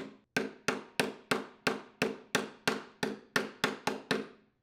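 Hammer tapping the end of a plastic pipe used as a driver to seat a new crankcase oil seal in a Kohler small engine: about a dozen even strikes, roughly three a second, each ringing briefly, stopping near the end.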